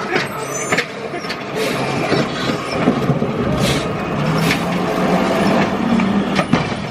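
Clicking, scraping and knocking as an oil filter housing cap is screwed back onto its threads by hand under the car.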